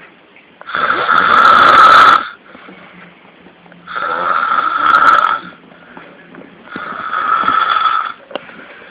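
Loud snoring: three long snores, each about a second and a half, coming about every three seconds, with quieter breathing between them.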